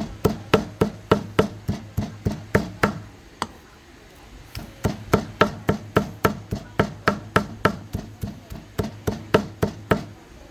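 Knife chopping and mincing pork together with prahok (Cambodian fermented fish paste) on a cutting board: steady knocks about three a second, with a pause of about a second before the chopping resumes.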